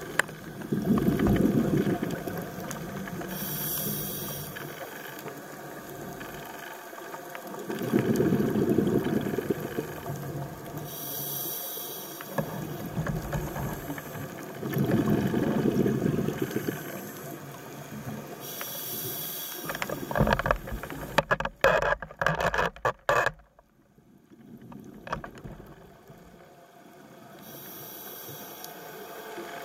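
A scuba diver breathing underwater through a regulator, in a slow cycle about every seven seconds: a short high hiss from the demand valve on each inhale and a loud bubbling gurgle on each exhale. About twenty seconds in, a few seconds of crackling knocks break the rhythm.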